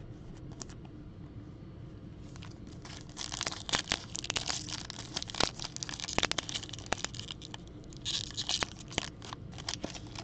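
Topps Chrome trading-card pack wrapper being torn open and crinkled by hand. The crackling tearing starts about three seconds in, and a second burst comes near the end.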